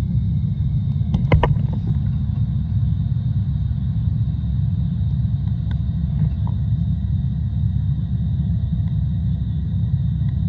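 Steady low underwater rumble inside a large aquarium tank, with a short cluster of sharp clicks about a second in.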